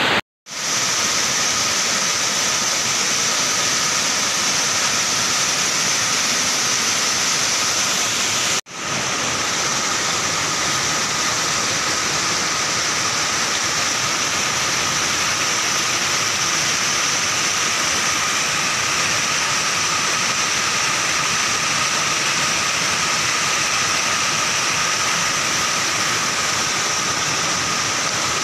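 Small waterfall and stream rushing steadily over rocks. The sound breaks off for a moment twice, just after the start and about eight and a half seconds in.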